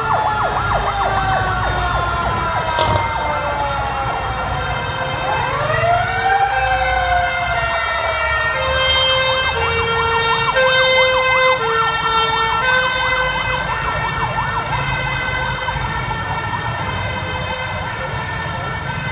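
Several fire truck sirens sounding at once: a rapid yelp repeating throughout, overlaid with slow wails that rise and fall. About halfway through, a two-tone hi-lo siren steps back and forth between two pitches for several seconds, over low engine rumble.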